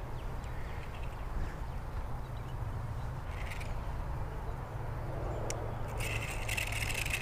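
Steady low rumble of wind on the microphone with a bird calling once about three and a half seconds in. Near the end, a rapid rattling whir as the small spinning reel is cranked to retrieve the line.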